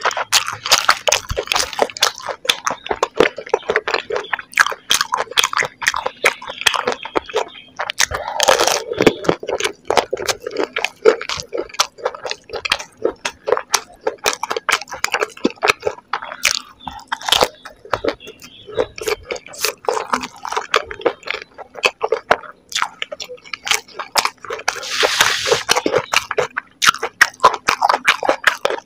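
Close-miked chewing of golgappa: crisp fried puri shells crunching and crackling in the mouth, with wet squishing from the fillings. There are two longer, louder stretches of noise, about 8 and 25 seconds in.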